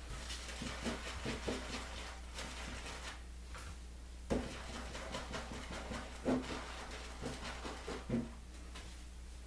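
Wet-shaving sounds: short scratchy strokes in irregular runs, broken by a few sharp knocks, over a steady low hum.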